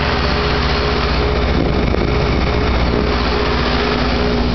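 Outdoor unit of a 2008 Goodman R-22 heat pump running in heat mode: its Copeland scroll compressor and fan give a steady hum with a strong low drone. The unit is still making an odd noise, which the owner finds not as bad as before.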